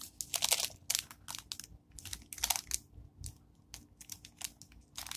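Irregular crinkling and light clicking of a small glitter packet being handled and emptied into a plastic bottle, with a faint steady hum underneath.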